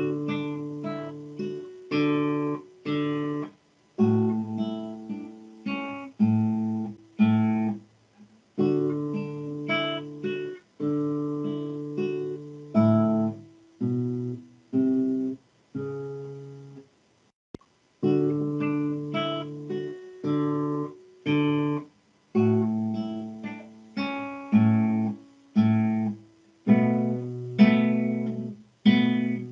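Classical nylon-string guitar played solo fingerstyle: a piece of plucked melody notes and chords, heard over a video call. The sound drops out completely in a few short gaps between phrases.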